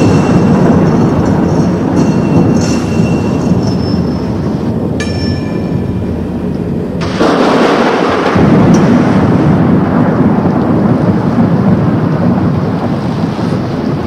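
Thunderstorm sound effect played from a Halloween sound-effects cassette: a continuous rumble of thunder with rain-like hiss, and a fresh, louder crash about seven seconds in. Faint high steady tones sound over the first few seconds.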